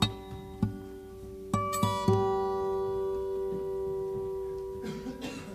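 Background music: guitar notes plucked and left to ring, with one long held note from about two seconds in.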